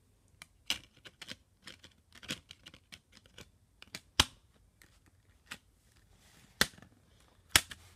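Blu-ray discs being handled in a steelbook's plastic disc trays: a string of small clicks and taps, with three sharp snaps, about halfway and twice near the end, as discs are pressed onto and pulled off the centre hubs.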